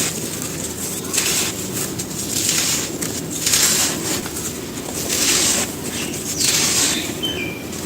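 Dry sand-cement pieces crumbling in a series of crisp, gritty crunches, about one a second.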